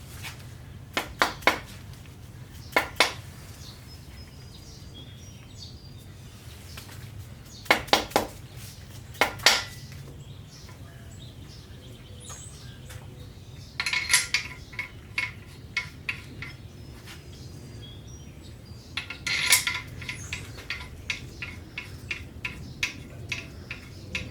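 Small metal engine parts clinking and knocking together as they are handled. The knocks come singly at first, then in two rattling runs with a short metallic ring.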